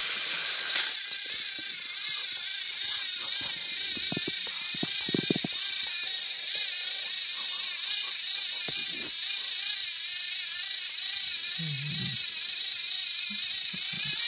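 Motors of two battery-powered Thomas & Friends toy engines whirring steadily as they push nose to nose in a stalemate, with a few soft low knocks.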